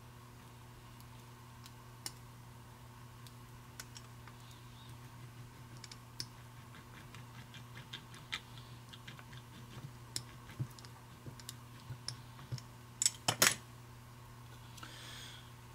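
Small wooden-handled hand roller worked over a new decal on a gauge dial, giving scattered faint clicks and ticks. A pair of louder knocks about 13 seconds in as the roller is set down on the bench, over a steady low hum.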